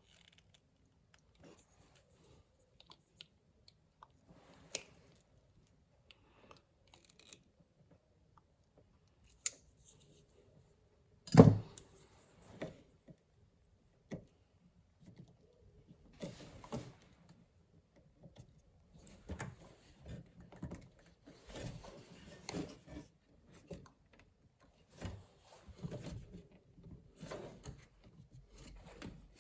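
Tools and parts handled on a workbench while capacitors are replaced on an amplifier's circuit board: scattered sharp clicks and snips of cutters trimming component leads, with one louder knock about eleven seconds in. The handling grows busier, with clusters of rustling and clicking through the second half.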